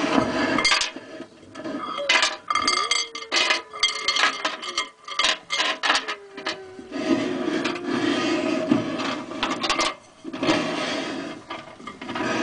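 Small hard plastic objects, likely toy soldiers, clattering and knocking on a hard surface in a quick run of sharp clicks and knocks, followed about halfway through by a few seconds of steadier noise.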